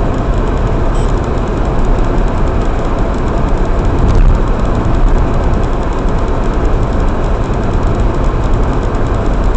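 Steady road and engine noise of a car being driven, heard from inside the car.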